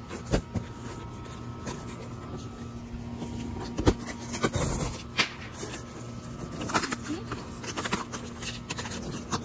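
Hands tapping and patting on a cardboard shipping box, scattered knocks with a brief scraping rub about halfway through, over a steady low hum.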